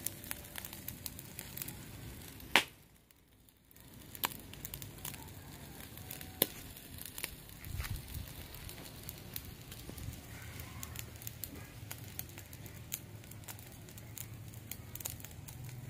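Charcoal fire crackling under chicken feet on a wire grill rack, with scattered sharp pops and a few louder clicks over a steady hiss; the sound drops away briefly about three seconds in.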